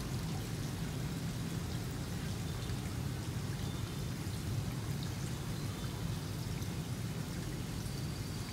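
Steady rush of water pouring and splashing into a goldfish tank.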